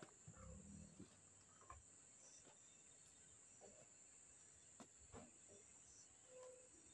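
Near silence: a faint, steady, high-pitched insect drone like crickets, with a few soft rustles and small snaps as garden plants are handled.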